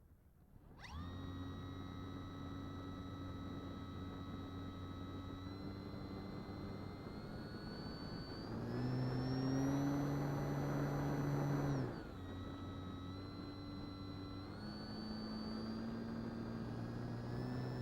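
Electric motor and propeller of an RC plane starting up and running under power with a steady whine. The pitch and loudness step up with throttle about two thirds of the way in, drop sharply when the throttle is cut back, then climb again in steps near the end.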